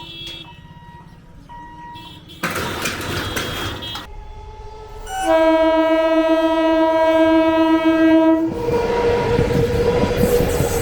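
EMU local train's horn sounding one long steady blast of about three seconds, midway through. The train then runs past with its wheels clattering over the rail joints. Earlier there is a short burst of rushing noise.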